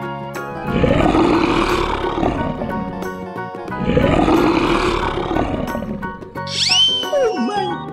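Two long lion roars, the first about a second in and the second about four seconds in, over background music. Near the end comes a quick run of falling whistle-like glides.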